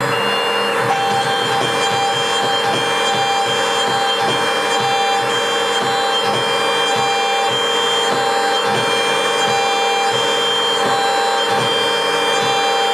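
High-frequency spindle of a MillStep PA6050 gantry CNC milling machine whining steadily as a 3 mm engraving cutter cuts a stamp. The whine has several held tones over a dense scratchy hiss, with small irregular ticks throughout.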